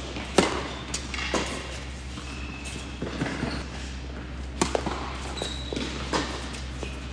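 Tennis ball struck by rackets and bouncing on an indoor court, sharp pops that echo in the hall over a steady low hum. The two loudest hits, serves, come about half a second in and again about four and a half seconds in, and a return follows near the end.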